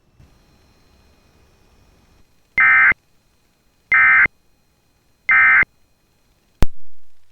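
Emergency Alert System end-of-message data bursts: three short, identical warbling data tones about a second and a half apart, signalling that the flash flood warning broadcast is over. Near the end comes a loud, sharp click with a short fading tail.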